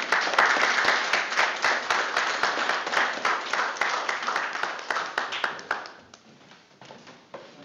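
Small audience applauding, a crowd's quick hand claps that die away about six seconds in.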